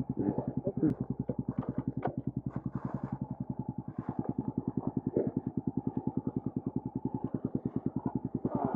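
Motorcycle engine idling at a standstill, a steady fast pulsing beat of about eight to nine firing pulses a second.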